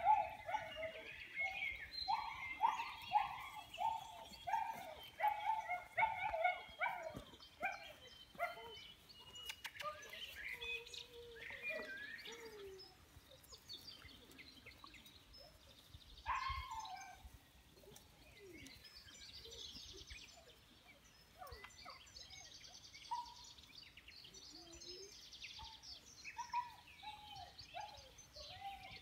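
Birds singing and chirping. In the first several seconds one bird repeats a short call about twice a second; after that come scattered chirps and a rapid high trill.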